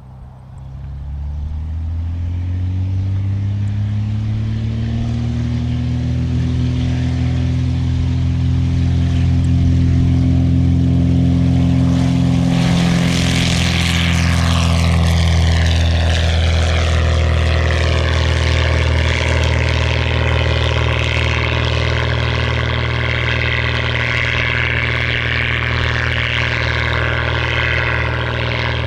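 Marquart MA-5 Charger biplane's piston engine and propeller opening up to full takeoff power, rising in pitch and loudness over the first couple of seconds. It then runs steady and loud through the takeoff and climb. About halfway through the plane passes close, and the pitch drops as it goes by.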